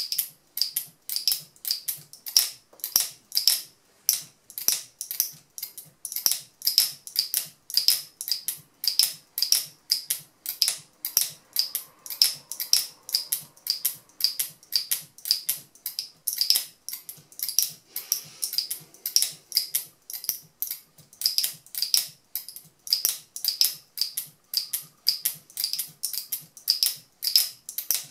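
Turquaz speargun camera mount's locking mechanism clicking as it is locked and released over and over in a durability test: sharp clicks, about three a second, in a steady rhythm.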